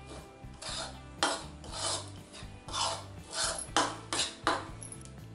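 Steel spoon scraping and stirring through a dry, crumbly flour mixture in a ceramic bowl: a run of short rasping strokes, roughly two a second, louder in the middle.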